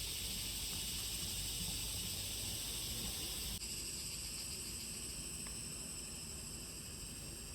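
Steady chorus of insects such as crickets or cicadas, a high layered shrilling in several pitches, which changes abruptly about three and a half seconds in.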